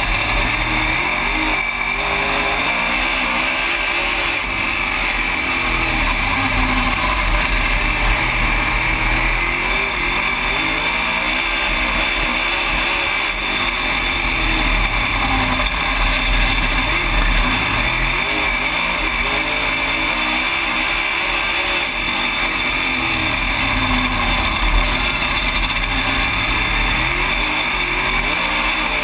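Dirt-track race car's engine heard from inside the cockpit under racing, revving up and backing off again and again, roughly every six seconds, over a steady roar of noise.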